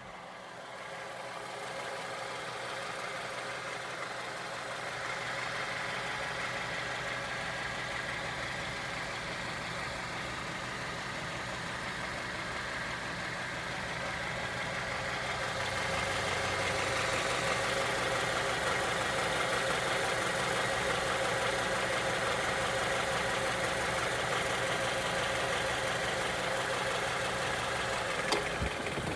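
Honda Element's 2.4-litre four-cylinder engine running steadily at idle, getting louder about halfway through, with an engine noise suspected to be rod knock. A single click sounds near the end.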